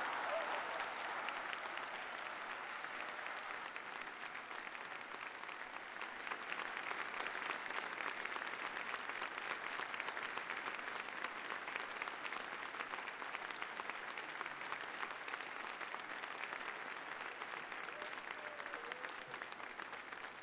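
A large congregation applauding, a dense continuous clapping that eases slightly and then swells again about six seconds in.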